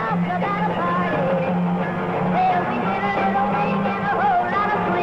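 Rock and roll band playing live, with a woman singing lead over the guitar and rhythm section.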